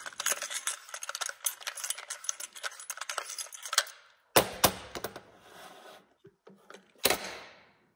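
An AR-pattern rifle's buffer tube being unscrewed by hand from the lower receiver, its threads giving a fast run of small clicks for about four seconds. Then parts are set down on a steel worktable: two sharp knocks about four and a half seconds in, and one more about seven seconds in.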